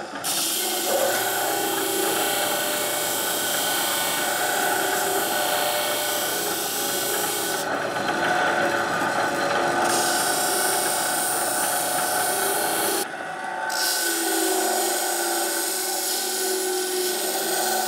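Bench belt sander running while a small brass spacer washer, held on a bolt, is ground against the moving belt. A steady grinding hiss over the motor's hum, with a brief dip about 13 seconds in where the contact changes.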